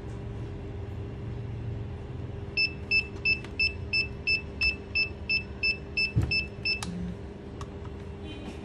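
An electronic device beeping: about a dozen short beeps at one steady pitch, roughly three a second, starting a few seconds in and stopping near the end, over a steady low hum.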